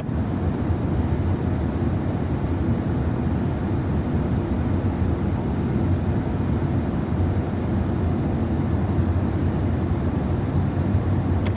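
Air blowing steadily from the dashboard vents inside a Mazda CX-5's cabin: an even rushing with a deep low rumble under it.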